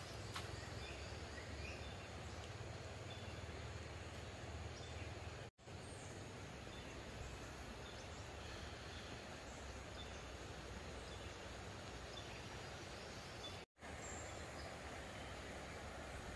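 Steady outdoor background noise, an even rushing hiss with a low rumble, with a few faint, short, high bird chirps. The sound cuts out completely for a split second twice.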